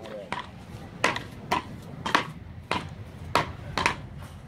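Beach-racket paddles hitting a rubber ball back and forth in a rally: a run of sharp knocks, about seven in all, roughly every half second to second.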